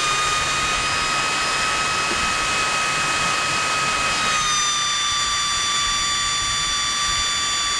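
High-rpm CPU fan running at speed: a steady rush of air with a high whine, its pitch dipping slightly about four seconds in.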